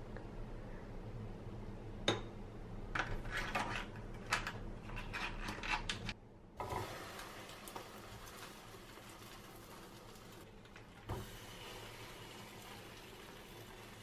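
A table knife slicing a block of butter and clicking against a small ceramic dish: light clicks and knocks that stop about six seconds in. Then thick, egg-soaked French toast sizzling faintly in a nonstick frying pan, with a single knock of metal tongs near eleven seconds.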